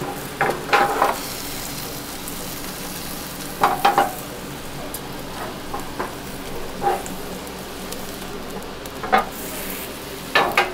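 Egg omelette sizzling in oil in a rectangular tamagoyaki pan over a gas flame, with short clattering knocks of the pan and a wooden shaping board in small clusters every few seconds as the omelette is pressed and turned.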